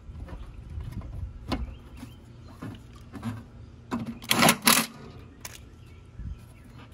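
Clicks, knocks and metallic rattling from handling and fitting the air conditioner's sheet-metal cabinet panels, with the loudest burst of clatter about four seconds in.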